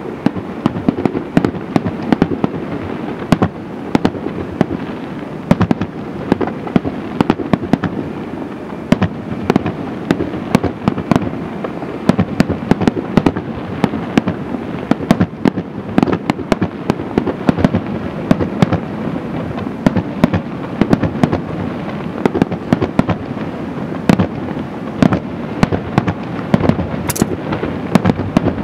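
Fireworks display: aerial shells bursting in rapid succession, a continuous run of booms and sharp cracks with no break.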